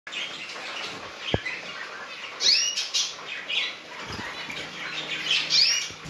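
Zebra finches calling in a cage: a running patter of short chirps, with two louder calls, one about two and a half seconds in and one near the end. A single sharp knock about a second in.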